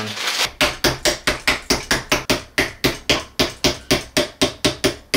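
Rapid, steady knocking, about four blows a second, as a screwdriver handle taps a plastic end cap into place on the joint of a monitor arm.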